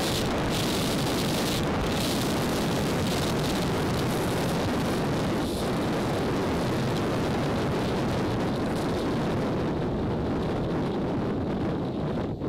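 Wind rushing over the microphone of a camera mounted on a Suzuki Burgman 650 maxi-scooter at highway speed, mixed with engine and road noise: a loud, steady rush. The high hiss thins out near the end.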